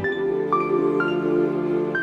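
Background music: a gentle, slow new-age style piece, with bell-like melody notes about every half second over sustained chords.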